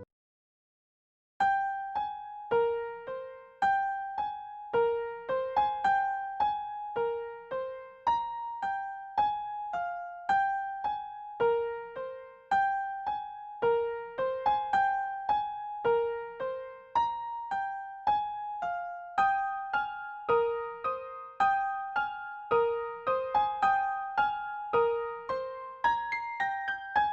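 Background music: a simple, gentle keyboard melody of single piano-like notes that each ring and fade, starting after about a second and a half of silence.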